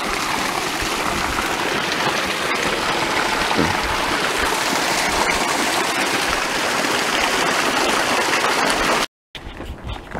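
Small mountain stream rushing and splashing down over granite boulders in a steady, loud wash. It cuts off suddenly about nine seconds in.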